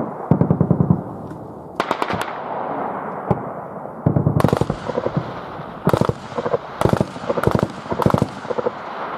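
Bursts of automatic gunfire with a rolling echo: a long rapid burst at the start, another about two seconds in, and a string of shorter bursts from about four seconds on.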